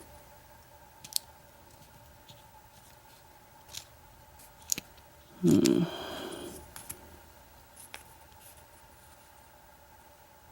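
Small metal clicks and scrapes of padlock cylinder parts being worked with a plug follower while the lock is taken apart. The clicks are scattered and sharp, with one louder, fuller scrape lasting about a second, about halfway through.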